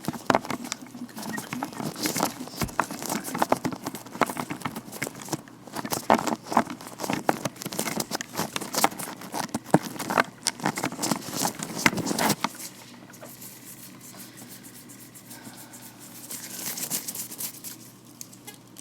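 Vinyl-latex gloved hands rubbing and tapping close to the microphone: dense crinkling and crackling clicks that stop about twelve seconds in, leaving only faint soft rubbing.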